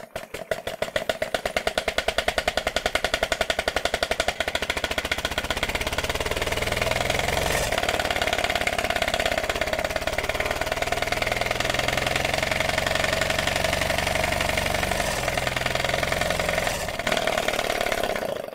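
3D-printed single-cylinder VTEC engine model running on compressed air with VTEC off, driving an inertia-dyno flywheel. Its rapid exhaust pulses quicken over the first few seconds as it spins the flywheel up, hold steady, then die away near the end as the run stops.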